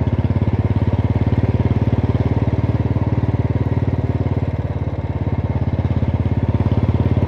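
Motorcycle engine running steadily while being ridden, with a rapid, even exhaust pulse. It eases off slightly about five seconds in.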